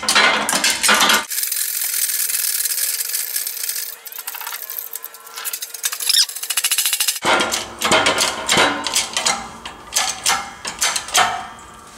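Hand-pumped bottle-jack hydraulic shop press working, with a run of sharp metallic clicks and clanks as it presses a new tapered roller side bearing onto a differential carrier. A steady hiss runs for several seconds in the middle.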